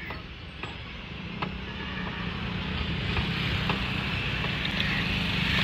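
A motor vehicle's engine running and growing steadily louder, with a few faint knocks.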